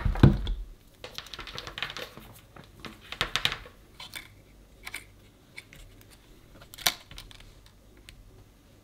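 Handling sounds of a digital multimeter and its test probes: a knock at the very start as the meter is set down on the silicone mat, then scattered light clicks and taps as the probe tips touch the battery connector pads, with a sharper click near the end.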